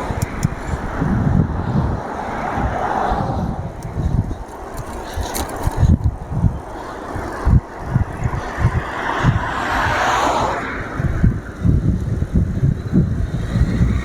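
Wind buffeting the camera microphone on a moving bicycle, over road noise from cars passing on a busy road; the loudest car goes by about nine to ten seconds in.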